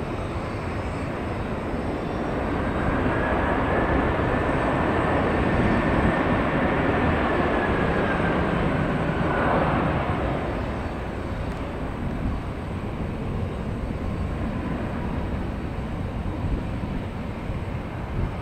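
Airbus A330-300 jet passing, its engine noise swelling over several seconds with a high whine that drops in pitch about ten seconds in, then easing off.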